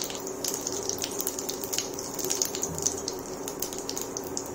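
Cumin seeds sizzling and crackling in hot oil in a kadhai: a steady hiss dotted with many small irregular pops as the seeds fry for the tempering. A steady low hum runs underneath.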